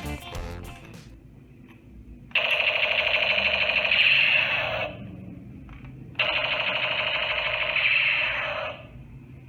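Toy gun's electronic firing sound played through its small speaker, in two bursts of about two and a half seconds each, a few seconds apart.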